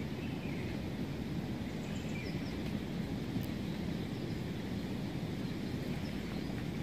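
Steady wind rumble on the microphone, with a few faint bird chirps.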